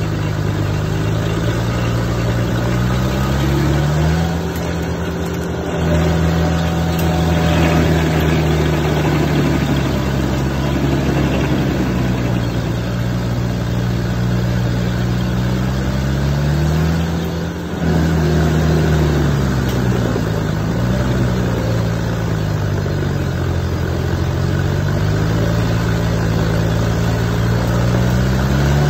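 Rayco RG100X stump grinder working an oak stump: its engine runs hard under a steady grinding noise, the engine note sagging and recovering a few times as the cutter wheel takes load, most clearly about four seconds in and again from about seventeen to twenty-two seconds.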